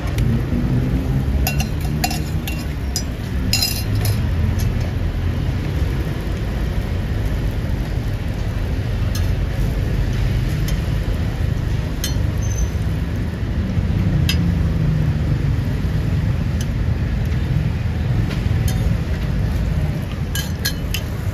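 Scattered light metal clinks and taps of cooking utensils, busiest in the first few seconds: a spoon in a small steel cup, then spatulas on a flat steel roti griddle. They sit over a steady low rumble of street traffic.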